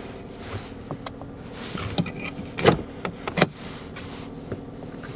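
2003 Mercedes-Benz E320's 3.2-litre V6 idling as a steady low hum, heard from inside the cabin, with a few sharp clicks and knocks; the loudest two come just past the middle.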